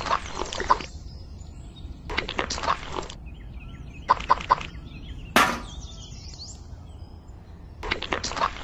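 Bursts of rapid tapping and scraping as wet cement is knocked and scraped out of a small plastic cup, with one sharp crack about five seconds in. Faint bird chirps in the background.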